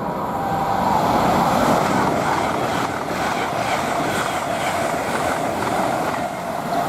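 Class 800 express train passing through the station at speed: a steady rush of wheel and air noise that swells about a second in, with a faint steady whine.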